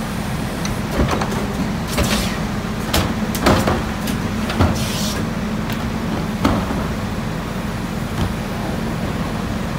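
Rear-loader garbage truck's engine running with a steady hum while its cart tipper dumps a wheeled trash cart into the hopper: a string of sharp knocks and bangs from the cart, lid and tipper, mostly in the first two-thirds, growing sparse near the end.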